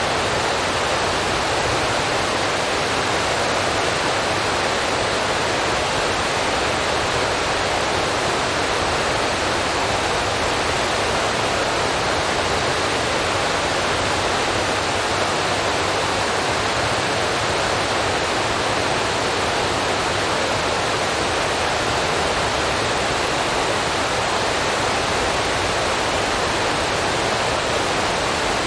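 A steady rushing hiss, even and unchanging in level, with no tones, clicks or beats in it.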